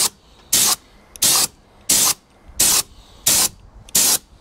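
Compressed-air spray gun with a suction-feed cup hissing in short, evenly paced bursts as it mists a fine coat of rust-protection fluid onto a motorcycle engine. There are about seven quarter-second squirts, roughly three every two seconds.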